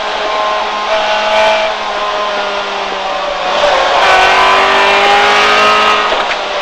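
Honda B16A four-cylinder engine of a Civic rally car pulling hard under full throttle, heard from inside the cabin, its pitch shifting with gear changes and throttle. It gets louder from about four seconds in as the car accelerates out of a bend.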